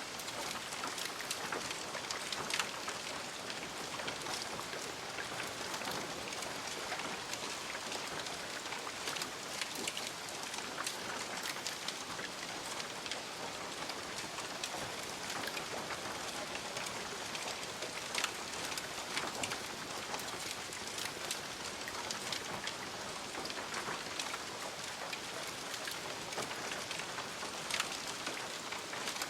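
Smouldering remains of a fire: a steady hiss with scattered crackles and pops.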